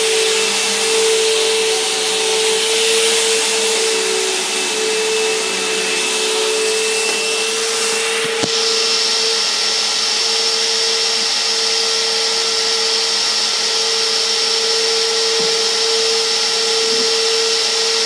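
Bissell CleanView Helix bagless vacuum cleaner running steadily: a strong motor hum over a rush of suction noise. About halfway through there is a brief click, after which a thin high whine joins in.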